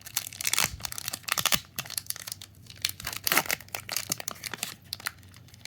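Foil booster pack wrapper being crinkled and torn open by hand: an irregular run of crackles and rips, thinning out near the end.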